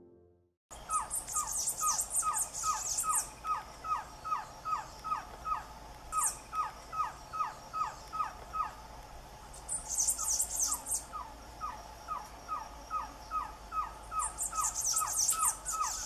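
A trogon singing a long, even series of short, downslurred whistled notes, about three a second, with a brief break a little past the middle. Piano music fades out at the very start, and bursts of high, thin chirping come and go in the background.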